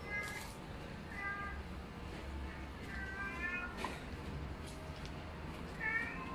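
A cat meowing: four short calls, a second or two apart, over a low steady rumble.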